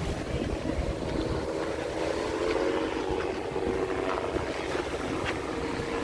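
Street traffic: a motor vehicle's engine running steadily, with wind rumbling on the microphone.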